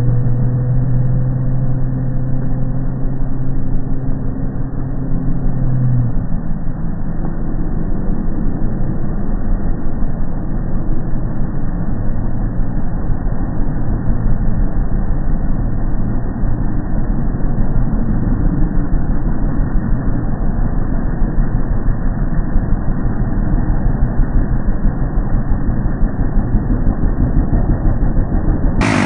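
A motor runs with a steady hum that stops about six seconds in, under heavy low rumbling and buffeting like wind on the microphone.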